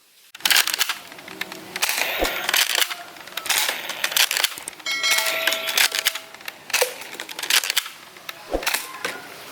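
Clicking and clattering of plastic toy guns being handled, with a brief ringing tone about five seconds in.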